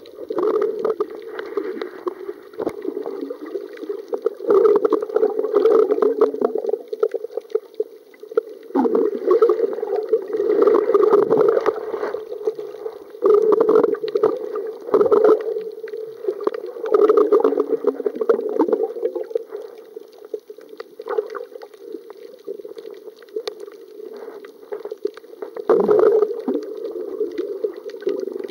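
Muffled underwater water noise heard through a submerged camera: a steady low gurgling wash with irregular louder surges every second or two.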